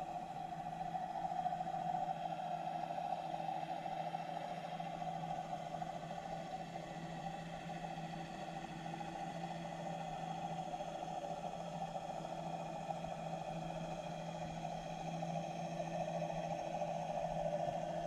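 Steady underwater hum heard through a submerged camera: a constant hiss-like band with a few held tones under it, unchanging throughout.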